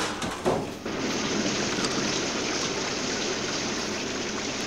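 Rain falling steadily on the film's soundtrack, an even hiss that sets in about a second in.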